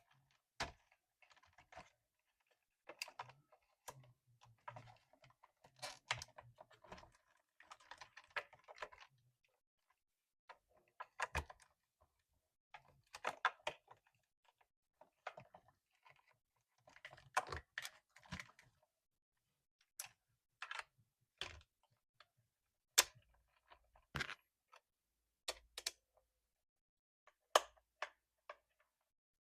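Irregular small clicks, taps and rattles of hands unpacking and handling plastic toy cars and their packaging. Clusters of clicks come first, and single sharp clicks are sparser in the second half.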